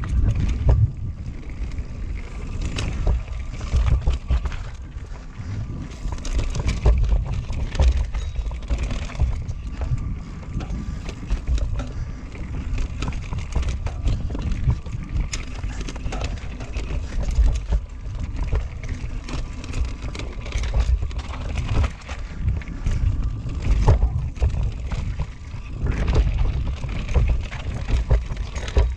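Norco Range enduro mountain bike ridden fast down a rough dirt trail: tyres rumbling over dirt, rocks and roots, with frequent clicks, knocks and rattles from the bike, under a heavy rumble of wind on the microphone.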